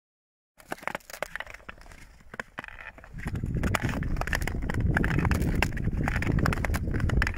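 Ice skates gliding over thin, clear glacier-lake ice: blades scraping with sharp clicks and small cracks of the ice. It starts about half a second in and grows louder, with a steady low rush, from about three seconds in.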